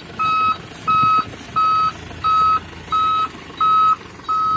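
A dump truck's reversing alarm beeping a single steady tone, about seven even beeps at a little under one and a half a second, starting a moment in, over the low running of the truck engines. The truck is backing up to push the stuck, fully loaded dump truck out of the mud rear to rear.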